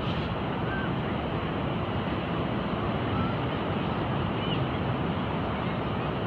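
Steady, even rushing of surf and moving water, with no breaks or single events standing out.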